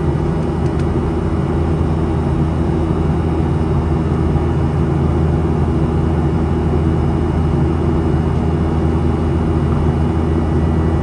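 Steady in-flight cabin drone of a Boeing 737-700, its CFM56-7B turbofan engines heard from inside the cabin, with a faint steady whine above the low rumble.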